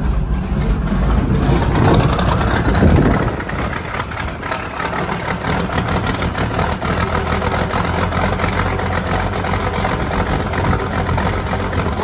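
International 4166 tractor's turbo diesel engine running just after being started, briefly louder about two to three seconds in, then settling to a steady idle.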